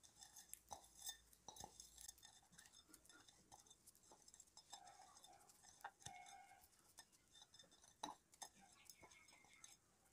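Near silence with faint, scattered clicks and clinks: a glass container being handled as the last salt is tipped out of it onto a steel plate. The loudest click comes about eight seconds in.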